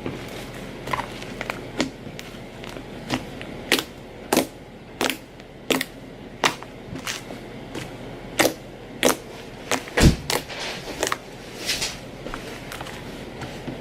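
Fluffy slime being squished and poked by hand, giving irregular sharp pops and clicks, roughly one or two a second, with one heavier thump about two-thirds through.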